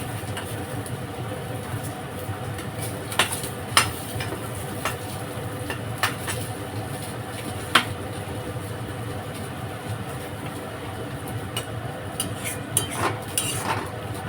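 A metal spatula stirring meat in a pan, with scattered sharp clinks against the pan, over a steady low hum.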